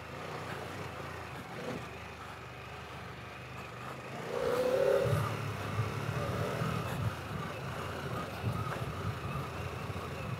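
Harley-Davidson Pan America's V-twin engine running under way on a dirt trail. It gets louder about four seconds in.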